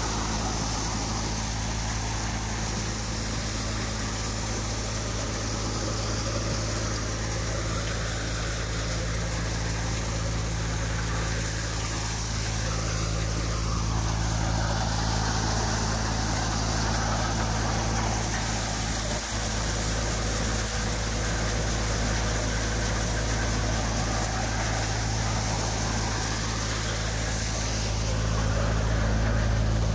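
Tractor-driven maize thresher running at a steady speed: a constant low engine drone under an even, noisy hiss from the threshing drum as corn cobs are fed through.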